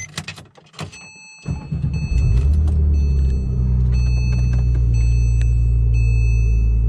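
Porsche 997 GT3's naturally aspirated flat-six started: a few clicks, then the engine fires about a second and a half in, swells as it catches and settles into a steady idle.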